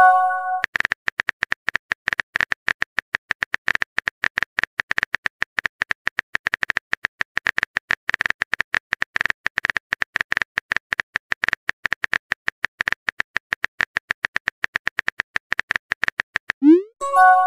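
Phone keyboard typing sound effect: a fast, even run of short clicks, several a second. A message-notification chime sounds at the start, and again near the end after a short rising swoop.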